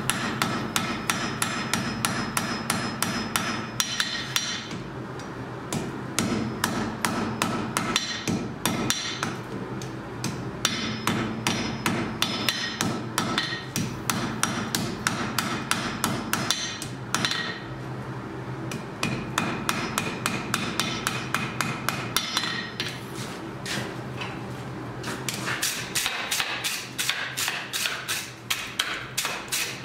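Blacksmith's hammer striking iron on an anvil in fast runs of blows, several a second, broken by short pauses. Each blow leaves a ringing metallic note.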